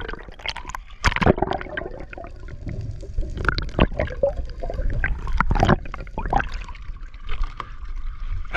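Water sloshing and splashing against the hull of a small fishing boat, with irregular knocks and clatter on board.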